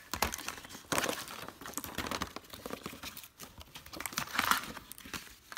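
Plastic packaging crinkling and crackling in uneven spells, with small clicks, as a small gift box with a clear plastic window and insert is handled and opened, loudest about a second in and again near the end.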